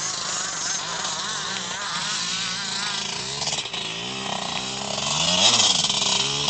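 Two-stroke KTM dirt bike engine revving, its pitch wavering up and down, with a sharp drop and rise in revs about five seconds in.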